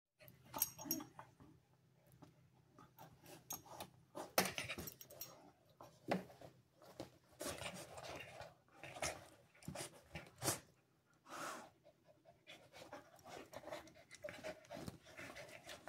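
A husky and a husky puppy play-fighting and mouthing each other, with panting and scuffling in irregular bursts.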